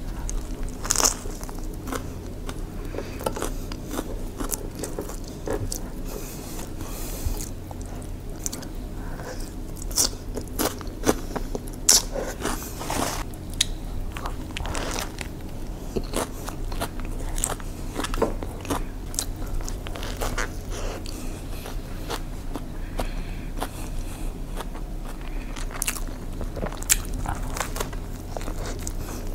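Close-miked biting and chewing of a sandwich, heard through a clip-on microphone: irregular sharp crunches, with a few louder ones scattered through.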